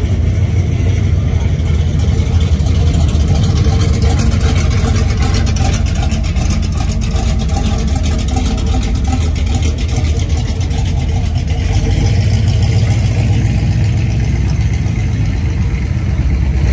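Cars cruising slowly past with their engines running, over crowd voices.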